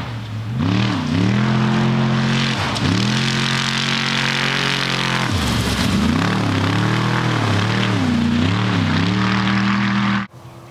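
Off-road race car's engine running hard as it passes, its pitch dropping and climbing back again several times. The sound cuts off suddenly near the end.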